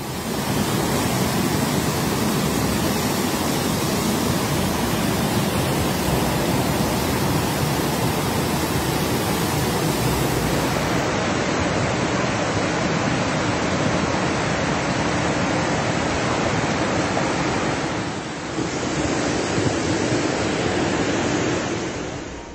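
Floodwater torrent rushing down a street: a steady, dense rushing noise that dips briefly about eighteen seconds in.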